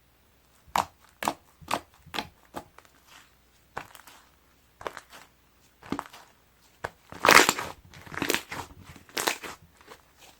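Soft, fluffy milk-ice-cream slime being pressed and squeezed by hand: a quick run of short, sharp pokes in the first couple of seconds, a few spaced-out ones after, then longer, louder squishes from about seven seconds in.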